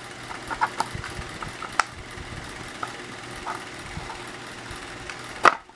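Light clicks and taps of wooden and metal parts being handled and fitted onto a Skilsaw circular saw motor's shaft, over a steady hiss, with a sharper click near the end.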